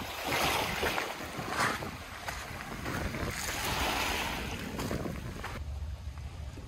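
Small waves washing in slow swells over a pebble and rock shoreline. Near the end the wash fades and wind rumbles on the microphone.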